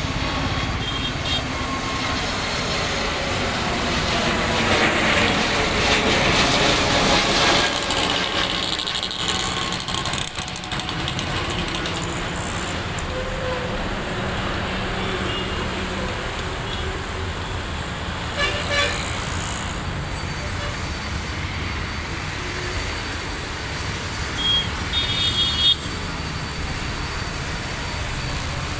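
Jet engine roar of a twin-engine airliner climbing away after takeoff. It swells about four to eight seconds in, then settles to a steady distant rumble. A few short, high toots come near the end.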